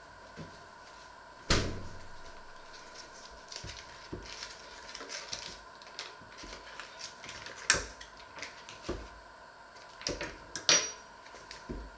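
A door thuds shut, then the foil wrapper of a butter block crinkles and rustles as it is peeled open on a wooden cutting board. A few sharp knocks follow, the last one with a short metallic ring.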